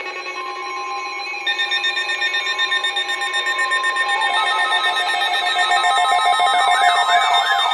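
Several electronic alarm tones layered on top of each other, more joining in as it goes, pulsing rapidly and growing louder; about six and a half seconds in a siren-like tone starts sweeping up and down about twice a second.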